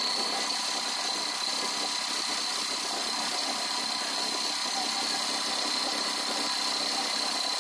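A CNC lathe's spinning chuck while a boring bar with a carbide insert cuts a 0.6 mm step into the soft jaws to fit them to the part. It makes a steady machining noise with a thin high whine running through it.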